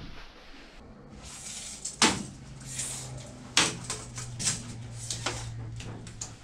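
Hand work on a vintage camper's rotted wooden wall framing: sharp knocks, the strongest about two seconds and three and a half seconds in, with smaller clicks and scraping as wood is worked loose. A low steady hum runs underneath.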